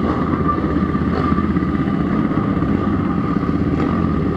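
Sport motorcycle engines running at low speed, a steady, unbroken engine sound with a faint steady high tone over it.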